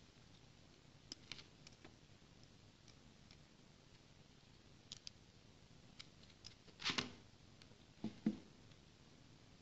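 Faint clicks and taps of a small screwdriver working the set screw of an aluminium flexible shaft coupling on a stepper motor. A short scraping rattle comes about seven seconds in, then two soft knocks about a second later as the screwdriver and bit are set down on the table.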